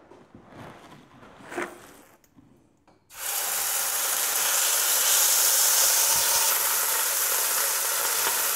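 Beef roast searing in hot oil in a preheated pot: a loud sizzle starts suddenly about three seconds in as the meat goes down and keeps going steadily. Before it, only a few faint handling noises.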